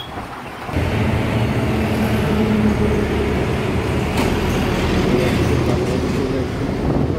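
Engine and road noise heard from a motorbike moving through city traffic, jumping suddenly louder about a second in and then running on with a steady engine hum.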